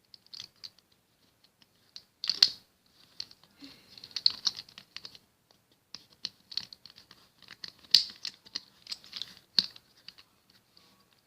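Plastic Rubik's cube pieces clicking and tapping as they are handled and hooked back onto the cube's core: irregular light clicks, with a few sharper knocks about two seconds in and again near eight and nine and a half seconds.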